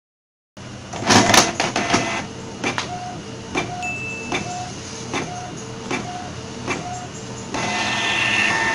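Canon iP2770 inkjet printer printing a nozzle check test page. A burst of loud clicks as it starts, then the print head carriage shuttles back and forth with a click and a short motor whine about every three-quarters of a second, and near the end a steadier motor whir as the page feeds out.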